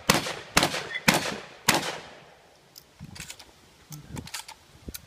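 Four gunshots in quick, even succession, about half a second apart, then a few fainter clicks and knocks of gun handling.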